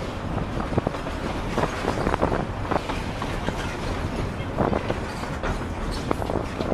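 Sugarcane train rolling along the track, heard from aboard: a steady rumble with irregular clicks and clacks from the wheels and cars.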